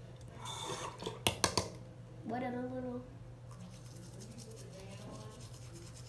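A few sharp clicks and knocks about a second in, then a short hummed voice sound. After that comes the faint, fast scrubbing of a toothbrush on teeth.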